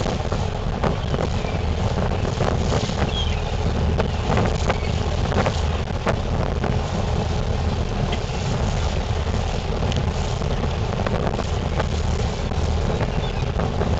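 Wind buffeting the microphone over a low, steady rumble from the boat's engine.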